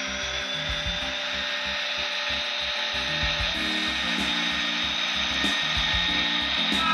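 Background music with a beat and chords, over a steady high-pitched whine from HO scale model diesel locomotives running along the track.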